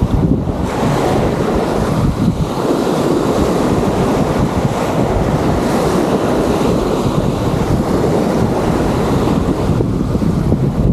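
Wind buffeting the microphone as a steady, gusty rumble, over the rush of surf washing onto the beach.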